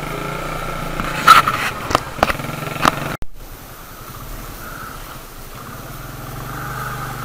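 Motorcycle engine running while riding, with several sharp knocks in the first three seconds. The sound drops out for an instant about three seconds in, and the engine then runs steadier and quieter.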